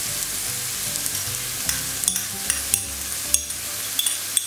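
Diced poultry breast and sliced green olives sizzling in a nonstick frying pan while a spoon stirs them, with a dozen or so sharp clicks of the spoon against the pan, more of them in the second half.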